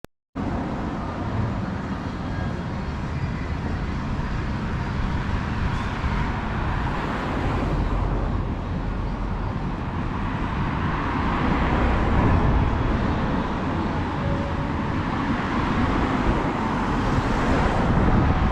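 Outdoor street ambience: wind rumbling on the microphone over steady road traffic. It cuts in abruptly just after the start.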